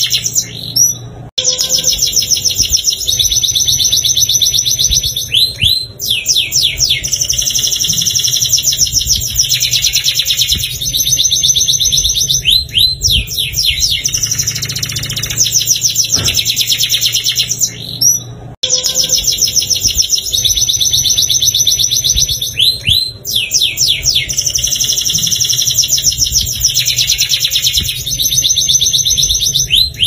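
Domestic canary singing a long, nearly continuous song of fast rolling trills, with a brief break about a second in and another just past the middle.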